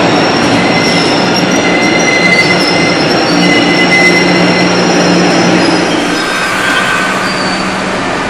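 MBTA Blue Line electric subway train rolling along the station platform: a steady rumble and motor hum under thin, high-pitched wheel squeal that comes and goes.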